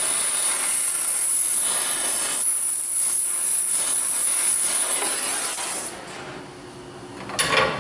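Oxy-fuel torch flame hissing steadily as it heats a rusted exhaust manifold bolt to break it loose. The hiss drops away about six seconds in, and a short, sharp burst follows near the end.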